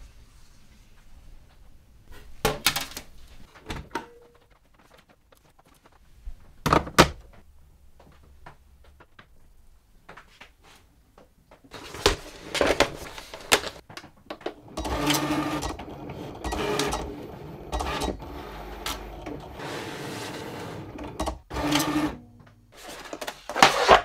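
A few scattered handling knocks, then a Cricut Explore cutting machine drawing in a sheet and running, its motors giving a steady hum for several seconds. A few sharp clicks come near the end.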